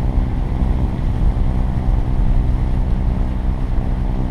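Sailing catamaran's inboard engine running steadily at low speed while motoring, its hum mixed with wind rumbling on the microphone.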